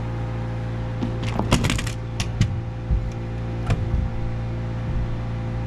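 Pneumatic framing nailer driving nails into lumber: several sharp cracks, a quick cluster about a second and a half in and single shots after, over a steady low machine hum.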